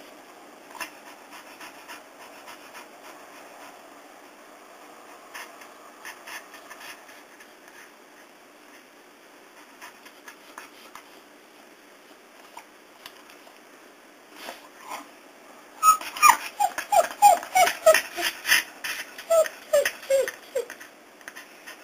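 A dog afraid of thunder whining in a sudden rapid run of short, high cries, each falling in pitch, starting about sixteen seconds in after a stretch of faint ticking.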